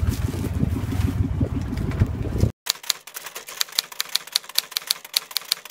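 Low, steady rumble of the boat's engine that cuts off abruptly about two and a half seconds in. It is followed by rapid, dry typewriter-style clicking, about four clicks a second, with no low end.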